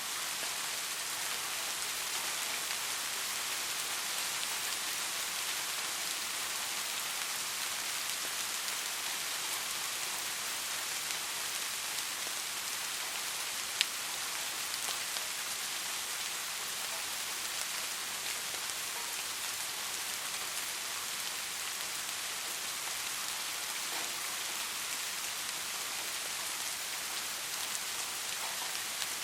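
Steady rain falling, an even hiss of many drops, with one sharper single tick about halfway through.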